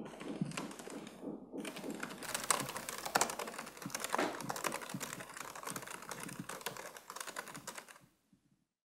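Fast typing on a laptop keyboard: a dense run of key clicks that fades out near the end.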